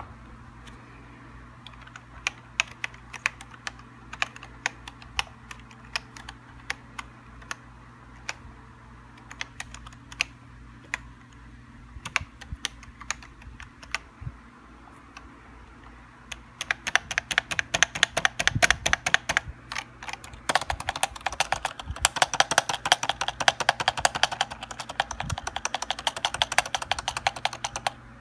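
Keys of a Tt eSports Commander quasi-mechanical (membrane) gaming keyboard being pressed: scattered single keystrokes at first, then fast continuous typing from a little past halfway on.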